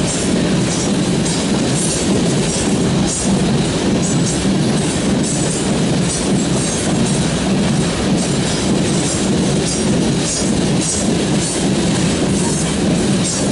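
Freight train of covered hopper cars rolling past: a steady rumble of wheels on rail with a repeated clickety-clack as the wheels cross the rail joints.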